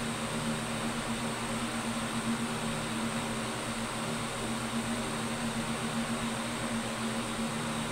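A steady mechanical hum with an even background hiss, unchanging throughout.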